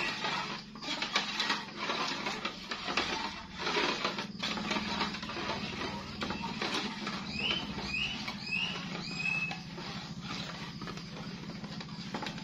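A spatula scrapes and stirs thick palm-sugar and sago-flour batter in an aluminium pan, with an irregular run of scrapes and clicks over a steady low hum. About two-thirds of the way through come four short, high, falling chirps.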